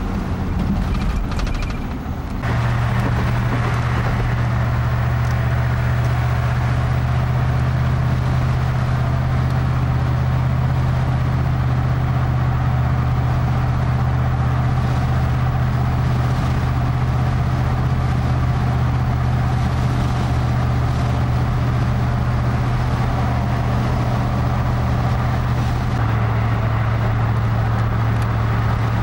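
Steady engine and road noise inside a car cabin at highway speed, a constant low drone under a rushing hiss. The level steps up suddenly about two seconds in.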